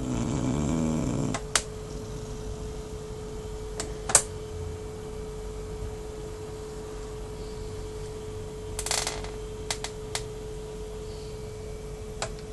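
A pet snoring: one loud snore lasting about a second at the start, then several sharp clicks scattered through the rest, over a steady hum tone.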